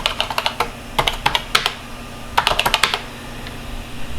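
Typing on a computer keyboard: three quick runs of keystrokes about a second apart, over a faint steady low hum.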